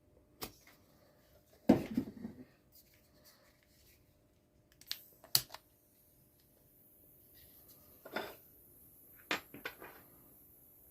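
Scattered clicks and knocks as a butane torch and a can of lighter gas are handled, the loudest a dull knock early on, with a faint high hiss setting in about halfway.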